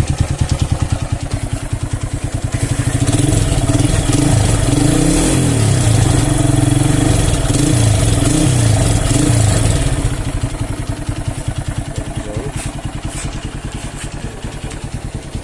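A Honda Megapro motorcycle's single-cylinder four-stroke engine running through a fitted Honda Tiger 2000 exhaust. It idles with a steady pulse, is revved up and down several times from about three seconds in, and drops back to idle about ten seconds in.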